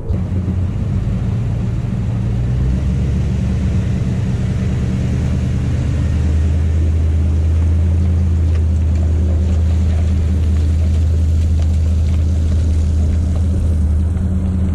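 Engine running steadily with a low hum, getting louder about six seconds in: a two-wheel-drive 2013 Toyota Tundra's 5.7-litre V8 pulling a loaded boat trailer up a wet boat ramp.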